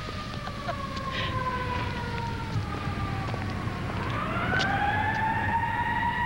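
Emergency vehicle siren wailing, its pitch sliding slowly down and then sweeping back up about four seconds in and holding, over a low rumble like traffic.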